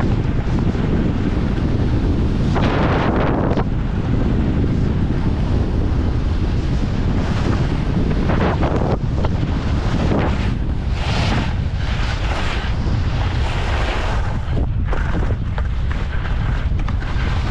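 Wind buffeting the microphone of a camera carried by a skier on the move, a steady low rumble, with repeated bursts of skis hissing and scraping over snow as they turn.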